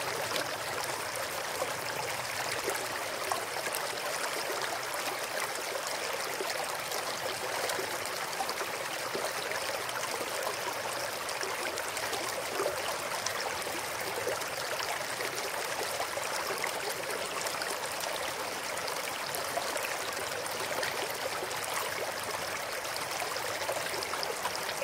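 Small mountain stream flowing over rocks: a steady, even rush and babble of water.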